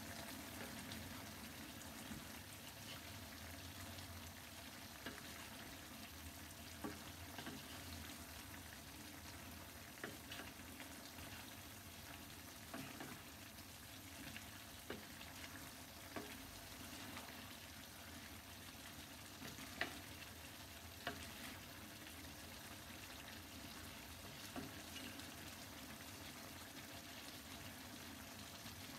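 Diced potatoes and turnips sizzling gently in a nonstick frying pan while a wooden spoon stirs them, with occasional soft scrapes and sharper taps of the spoon against the pan.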